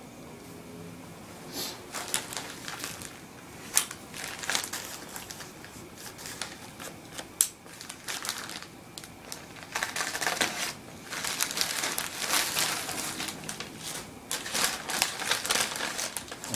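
Packaging being opened and unwrapped by hand: crinkling, rustling wrapping with scattered sharp clicks and taps. The rustling gets denser and busier in the second half.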